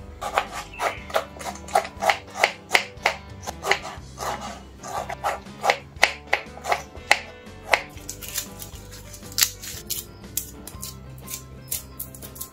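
Knife cutting through tomato and striking a wooden chopping board: a quick series of sharp knocks, about two to three a second, thinning to a few scattered clicks in the last few seconds.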